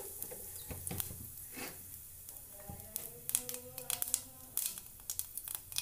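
Whole cumin seeds sizzling in hot oil in a non-stick frying pan, with many small sharp crackles and pops scattered through, stirred with a wooden spatula.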